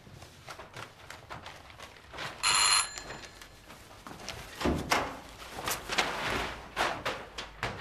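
An electric bell rings once, briefly, for about half a second. From about four and a half seconds in come rustling and shuffling noises with irregular knocks as two men scuffle over sheets of paper.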